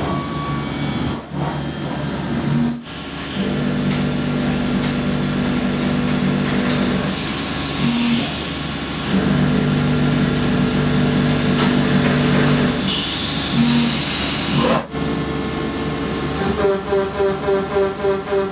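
A CNC milling machine cutting metal with a carbide or ceramic cutter: a steady cutting noise with hiss and a humming tone. The sound changes abruptly a few times, and near the end it turns into a pulsing of about four to five beats a second.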